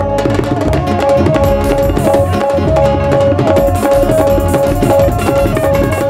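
Live Punjabi folk band playing an instrumental passage: a bowed dilruba carries a sustained melody over a busy tabla-style drum rhythm.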